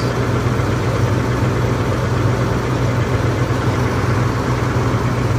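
A large bus's diesel engine running steadily with a low, even drone, heard from inside the bus at its open front door.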